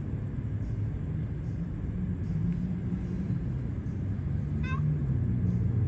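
A vehicle engine running with a steady low rumble that grows slowly louder, and a brief run of rising chirps about four and a half seconds in.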